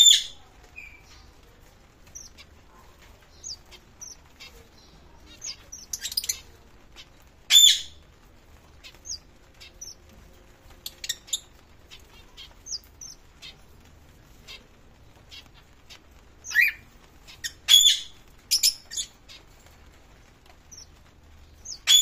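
Small caged finches, zebra finches and red avadavats, giving short high chirps scattered all through, with a handful of louder, sharper calls at irregular intervals.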